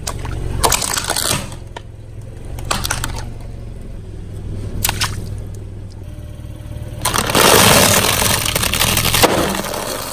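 Water balloons and a paper plate crushed under a car tyre: a series of sharp pops and cracks, then a loud crackling, splashing rush lasting about two seconds, over the car's steady low engine hum.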